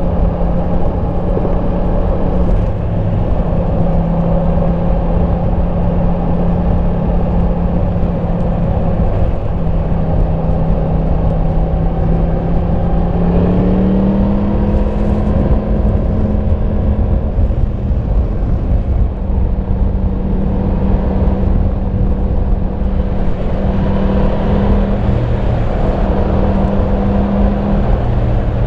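Yamaha MT-10 SP's crossplane inline-four running on its stock exhaust at a steady cruise, under a constant rush of wind and road noise. About halfway through the engine note rises a little as the bike picks up speed, then holds steady.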